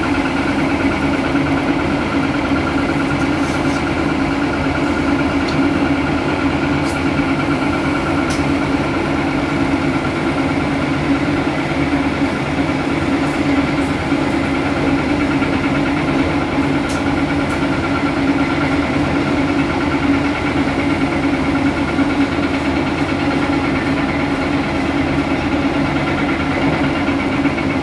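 Cat 330D L hydraulic excavator working, its diesel engine running steadily under load as it digs and loads dirt into a dump truck. A few faint clicks sound over the engine.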